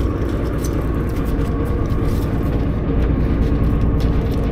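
A boat's outboard motor running steadily, a constant low hum with a steady pitch.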